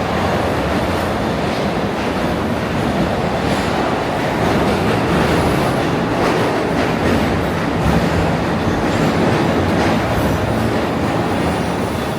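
New York City subway train running on the rails: a steady, loud rumble of wheels and running gear that swells a little in the middle.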